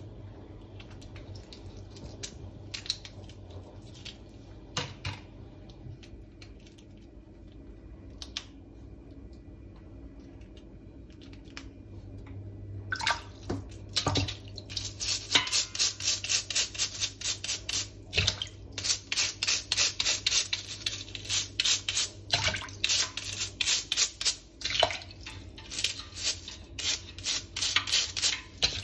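Blue swimmer crab being cleaned by hand: scattered small clicks and cracks of shell as fingers pick at the opened body. About halfway in, a stiff scrubbing brush starts scrubbing the crab's shell in quick, rapid strokes.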